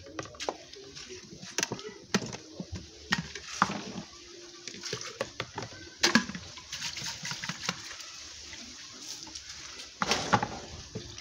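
Hands swishing and rubbing soaked raw groundnuts in water in a glass bowl, washing them before blending, with splashes and sharp clicks of nuts against the glass. A blender jar is handled near the bowl, and a short rush of splashing comes just after ten seconds.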